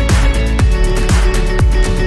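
Background music with a steady, deep beat about twice a second under held notes.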